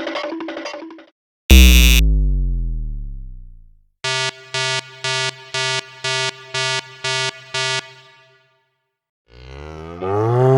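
A run of separate synthetic novelty sound effects. A rhythmic electronic jingle ends about a second in. Then comes a loud hit whose pitch falls away over about two seconds, then eight short buzzer beeps at about two a second, and near the end a swooping electronic tone.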